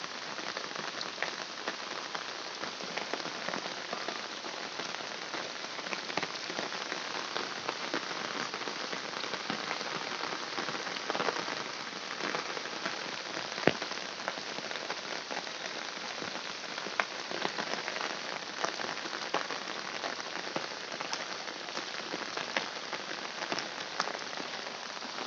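Heavy rain falling steadily, with many close drops striking a surface, and one sharper drop impact about 14 seconds in.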